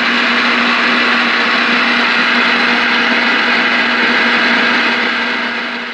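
CB radio receiver static from the Ranger RCI 2995DX's speaker: a steady hiss with a low hum running through it, fading near the end.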